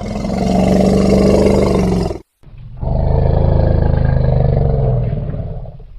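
Elephant roaring: two long, rough, low calls separated by a brief pause. The first lasts about two seconds; the second lasts about three and fades toward the end.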